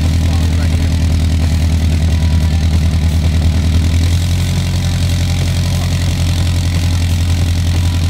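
Subaru BRZ's flat-four engine idling steadily through a freshly fitted Tomei unequal-length header and Berk front pipe, its note shifting slightly about halfway through. On starting, the owner found a small exhaust leak at a slight gap in the front-pipe-to-mid-pipe joint.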